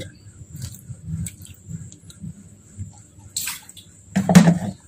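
Water poured from a plastic jug into a non-stick frying pan over sliced palm sugar, trickling and dripping, with scattered faint clicks. A brief louder knock comes about four seconds in.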